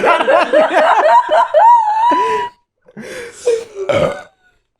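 A group of people laughing and chuckling. The laughter breaks off about halfway through, then starts again briefly.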